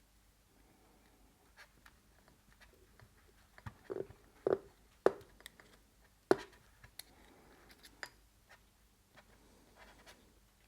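Small screwdriver prying and scraping at the timing cover of a Moki 215cc radial engine: light metal clicks and scrapes, with a handful of sharp metal knocks between about four and six and a half seconds in.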